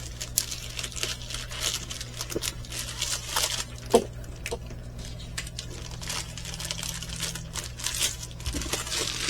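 Plastic packaging bags of a diamond painting kit crinkling and rustling as they are handled, in irregular short bursts with a few light clicks, over a steady low hum.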